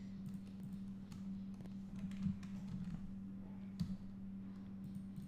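Scattered faint clicks of a computer mouse and keyboard, a handful of them a second or so apart, over a steady low electrical hum.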